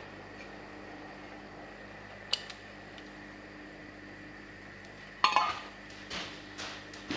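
Metal kitchenware knocking: a small metal bowl clinks once against the pot about two seconds in, then a loud clatter about five seconds in as it is set down, followed by a few lighter knocks.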